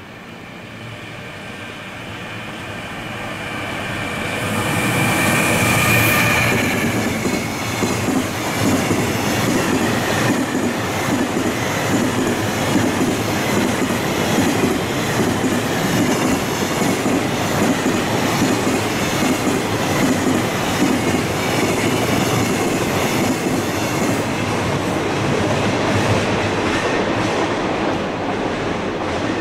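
JR Freight EF210 electric locomotive and its container freight train passing close by: a rising approach with a high whine, loudest about six seconds in as the locomotive goes past, then the long string of container wagons rumbling and clattering steadily along the rails.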